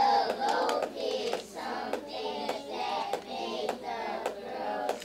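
A class of young children reading aloud in unison in a drawn-out chant, with sharp taps between the words.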